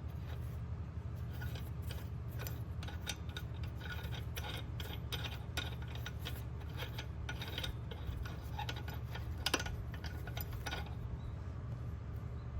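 Irregular light metallic clicks and ticks, like metal parts or hand tools being handled, over a steady low hum.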